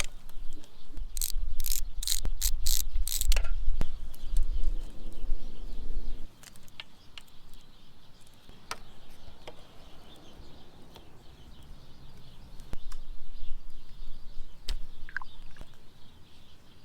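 A ratchet wrench clicking as it loosens the small oil screen bolt on a dirt bike engine, a quick run of about five strokes a second or so in, followed by scattered small clicks of parts being handled.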